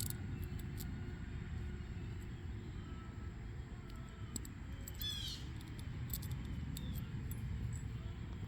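Steady low background rumble, with a few faint clicks and a short high squeak about five seconds in.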